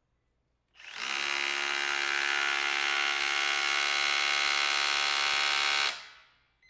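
DeWalt 12V DCH072 compact SDS Plus rotary hammer running at full trigger in rotary-hammer mode, its cut-down domed bit spinning and hammering in place against a steel test fixture. It starts about a second in, hammers steadily and rapidly for about five seconds, then winds down near the end.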